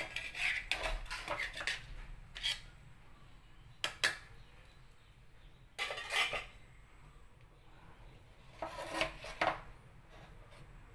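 Metal spatula scraping and clanking against a metal wok while stir-frying pork, mushrooms, onion and carrot, in several short bursts with pauses between.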